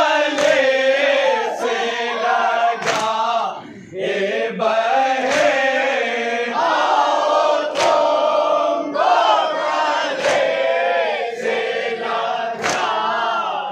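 Men chanting a nauha (Shia lament) in unison, with a sharp slap about every 1.2 seconds keeping the beat: hands striking chests in matam. The chanting drops away briefly about four seconds in, between lines.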